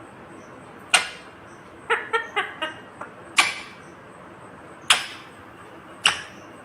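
Ringneck parakeet calling: four single sharp, loud squawks spaced a second or more apart, with a quick run of short chattering chirps about two seconds in.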